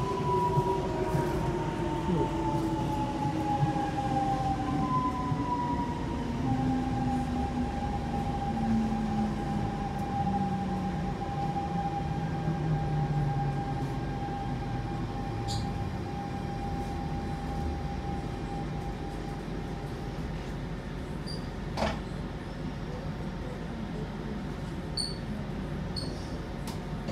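Siemens C651 metro train running, heard from inside the carriage: steady wheel and track rumble under the whine of its GTO-VVVF traction inverter and motors. The whine's tones glide downward over the first dozen seconds, then settle into one steady high tone, with a sharp click about two-thirds of the way through.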